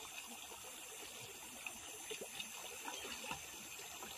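Faint trickling water, with a few light ticks and rustles.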